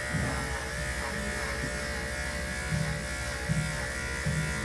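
Electric dog grooming clippers running with a steady buzz.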